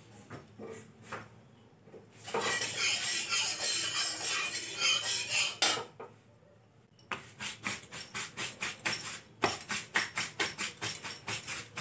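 Kitchen clatter: a few seconds of scraping, rustling noise, then after a short pause a run of quick, light clicks and clinks, several a second.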